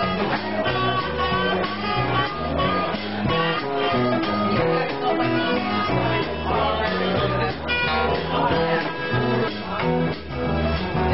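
Live band playing a song led by a strummed acoustic guitar, with drums and a steady low bass line underneath.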